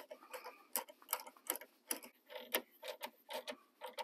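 Socket ratchet clicking in short strokes, a series of sharp, irregular clicks, as a 10 mm fastening is run down onto a ground wire terminal.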